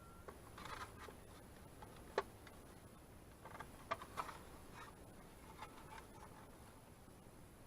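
Faint handling noises from a new LED light fixture and its parts: a few small clicks and short rustles, with one sharper click about two seconds in.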